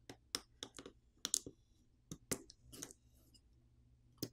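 A plastic pry tool clicking against a Google Pixel 4a 5G main board as the camera flex-cable connectors are popped off. There are about a dozen small, sharp, irregular clicks.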